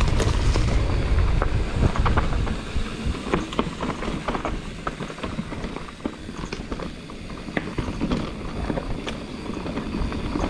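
Mountain bike riding down a dirt forest trail: tyre noise with frequent clicks and rattles from the bike, and a heavy low rumble in the first two seconds.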